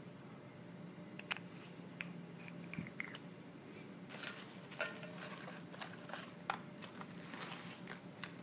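Small cosmetic items being picked up, set down and moved on a hard tabletop: scattered sharp clicks and taps with brief rustles of packaging, over a faint steady hum.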